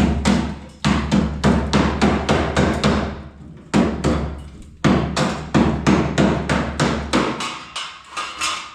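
Hammer blows on sheet metal, struck in quick runs of about five or six a second, with short pauses between the runs.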